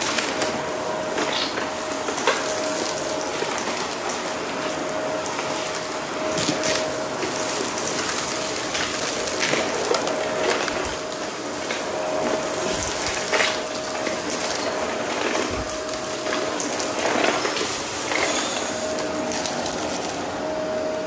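Shark Navigator upright vacuum running over bare concrete. Its spinning brushroll crunches and clatters on scattered small debris in many irregular clicks as it sucks the debris up, over the steady noise and whine of the motor.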